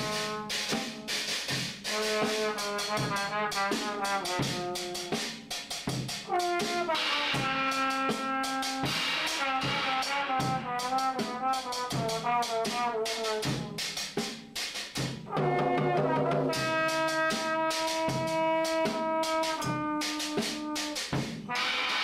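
A brass horn playing held notes, some sliding in pitch, over a drum kit beating throughout.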